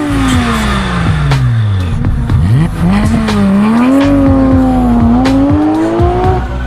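Avantis 300 enduro motorcycle engine revving and riding: the pitch falls steeply, then climbs and wavers with the throttle. Background music with a steady beat plays underneath.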